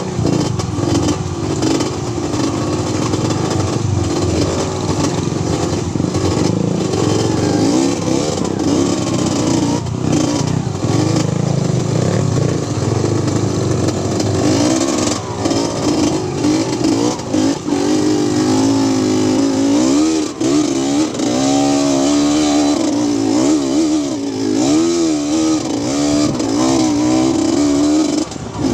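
Small motorcycle engine running as it is ridden over a rough dirt track, its revs rising and falling over and over in the second half as the throttle is worked.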